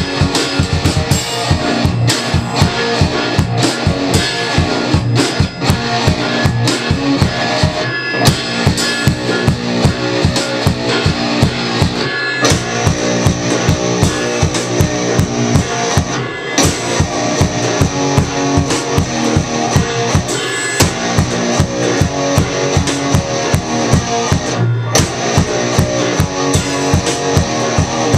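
Rock music with a steady drum beat and electric guitar.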